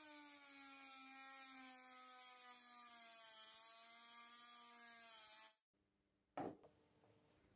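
Cordless rotary tool with a thin cut-off wheel spinning against the ends of braided copper wire, trimming them: a steady high whine that sags in pitch in the first second, then stops abruptly. A single short sharp sound follows about a second later.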